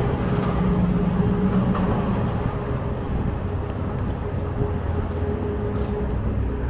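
Road traffic on a busy city street: a steady low rumble of engines and tyres with a constant hum running through it, and a lower engine drone for a moment about a second in.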